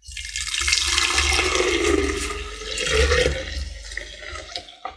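Blended herbal drink being poured into a jug: a steady stream of liquid splashing in, starting suddenly and tailing off near the end.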